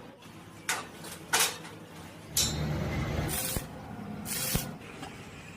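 Metalwork knocks and clanks: two sharp knocks in the first second and a half, then two short hissing bursts, each ending in a sharp tick.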